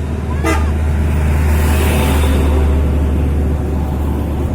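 A heavy vehicle's engine running close by with a deep steady hum, its road noise swelling and easing around two seconds in as it goes past. A brief sharp sound about half a second in.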